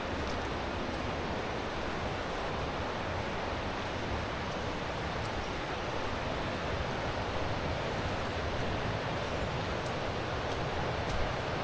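Steady rushing of river water, an even wash of noise that does not change, with a few faint high ticks now and then.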